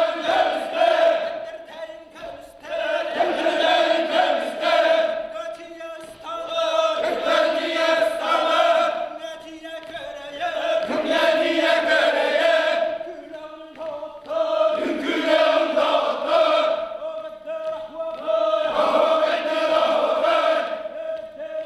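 A group of men chanting an osuokhai, the Yakut round-dance song, in phrases of two to three seconds with short breaks between them.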